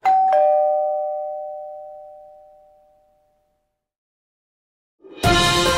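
Two-note ding-dong doorbell chime sound effect: a higher note, then a lower one a third of a second later, both ringing out and fading over about three seconds. Music starts loudly near the end.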